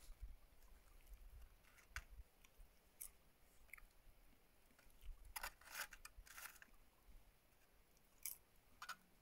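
Near silence broken by a handful of faint, short crackles and clicks, with a small cluster a little past the middle and a couple more near the end.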